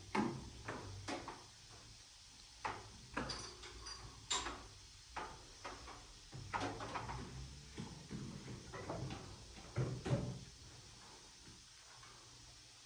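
Irregular knocks and clicks, about a dozen scattered through, the louder ones near four and ten seconds in, like objects being handled and set down.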